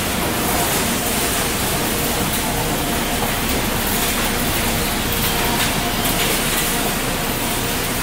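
Steady din of running machinery in a waste-recycling plant, a constant rushing noise with a faint steady hum underneath.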